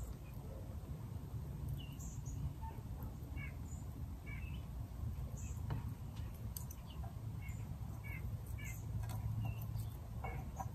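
Small birds chirping here and there, faint, over a low steady background hum, with a few soft clicks from a small stick fire crackling in a folding camp stove.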